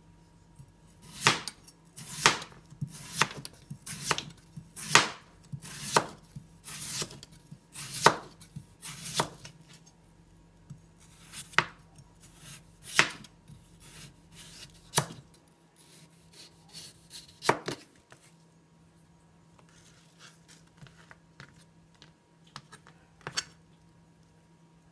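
Chef's knife slicing a peeled raw potato into thin rounds on a cutting board: a sharp knock each time the blade meets the board, about one a second for the first nine seconds or so, then more spaced out and fainter.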